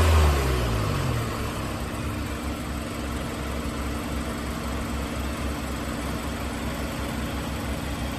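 An engine dropping from a rev to a steady low idle in the first second, then idling with an even low pulsing throb.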